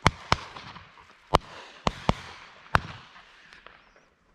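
Shotguns firing: about six sharp reports, some in quick pairs a fraction of a second apart, each trailing off briefly.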